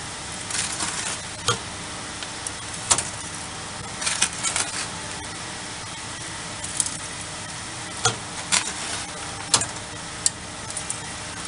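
Crushed charcoal being scooped and packed into a sheet-metal tin over steel punches: scattered short scrapes, crunches and light metallic clinks, about a dozen in all, over a steady workshop hum.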